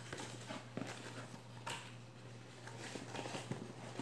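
Faint scattered taps and rustles of a small cardboard box being opened and handled by hand, with a sharper tap about one and a half seconds in.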